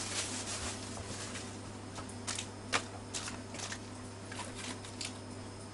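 Scattered light clicks and rustles of small goods being handled on a shop counter, with one sharper click a little before the middle, over a steady low hum.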